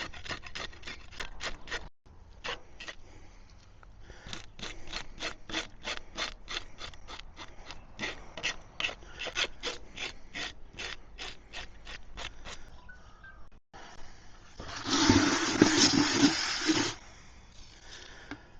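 Whiting being scaled: quick, rhythmic scraping strokes, about four or five a second, as the scales are rasped off the fish. Near the end comes a louder rushing noise lasting about two seconds.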